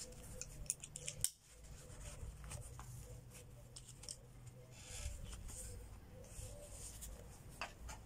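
Handling noise from a nylon tactical pouch: a few sharp plastic clicks from its clip about a second in, the last the loudest, then soft rustling of the fabric with occasional small clicks as a pocket is opened.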